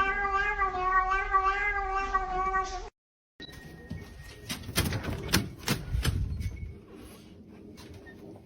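A cat's long, drawn-out meow held on one steady pitch, cut off abruptly about three seconds in. After a short gap come a few sharp knocks.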